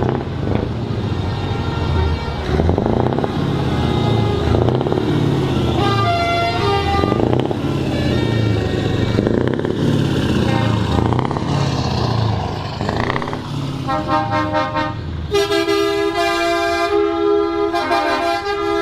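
Heavy trucks with their engines running and air horns sounding. Short horn blasts come partway through; near the end, horns blare loudly in several sustained, changing notes.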